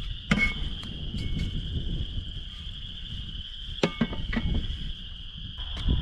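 Insects trilling steadily in a high, even drone over a low outdoor rumble, with a few sharp clicks and knocks scattered through.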